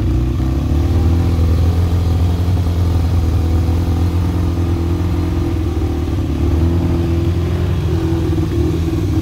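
Yamaha XJ600's air-cooled inline-four engine idling steadily, warming up after a cold start.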